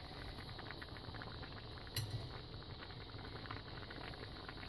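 A pot of rice-and-tomato shrimp stew simmering on low, with quiet, steady bubbling and tiny pops. A single light knock about two seconds in.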